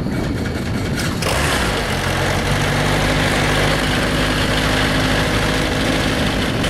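Robinson R22 helicopter's four-cylinder Lycoming piston engine running at ground idle with the rotor not yet turning. About a second in it gets louder and then settles into a steady low drone.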